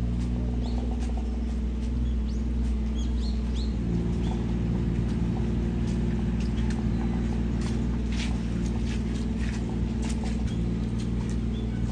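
A motor or engine running steadily with a low hum that shifts in pitch about four seconds in, while small birds chirp over it.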